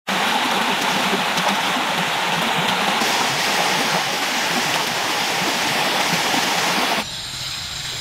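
Small forest stream and cascade rushing steadily over rocks into a pool. About seven seconds in it cuts off suddenly to a much quieter background.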